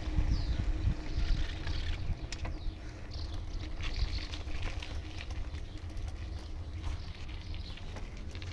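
Bicycle rolling along an asphalt street, with a steady low rumble of wind and road noise and scattered short high chirps and ticks throughout.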